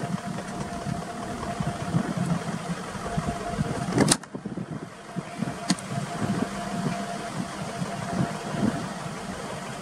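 Engine of the vehicle running at low speed, a steady hum, with one sharp click about four seconds in.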